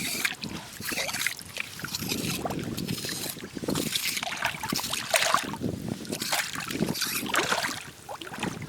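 Shallow seawater splashing and sloshing in irregular bursts as someone wades and gropes through it by hand, quieter near the end.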